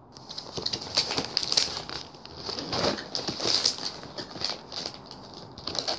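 Biscuit packaging being handled and put away: plastic wrapping and the cardboard biscuit box rustling and crinkling in irregular crackles.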